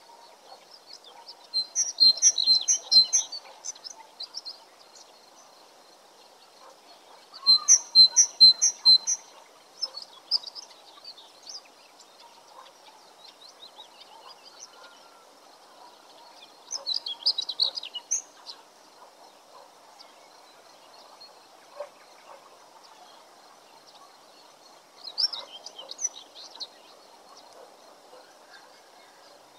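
Songbirds singing in several short bursts of quick high notes, the loudest about two and eight seconds in, over a faint steady background hum.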